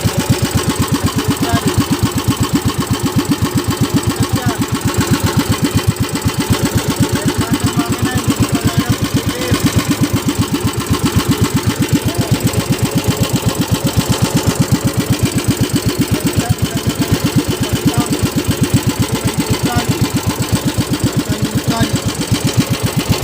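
Small fishing boat's engine running steadily with a rapid, even knocking beat.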